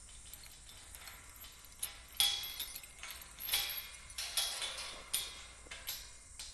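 Irregular rustling and light metallic clinks close to a small handheld microphone, coming in several short bursts.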